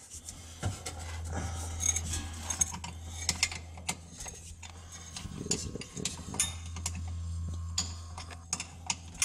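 Metal clicks and clinks of a wrench working the driveshaft-to-differential flange bolts as they are tightened, irregular and scattered, over a steady low hum.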